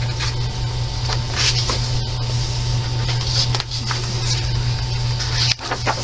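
Steady low electrical hum and hiss, with soft paper rustles as a page of a coloring book is turned.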